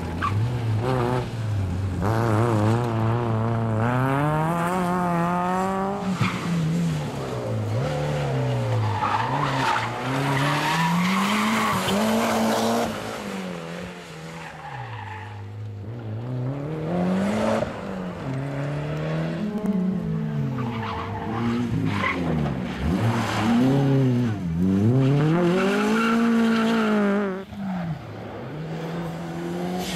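Rally cars driven hard one after another through a tight course: engines revving high and dropping sharply again and again with gear changes and lifts, with tyre squeal in the turns.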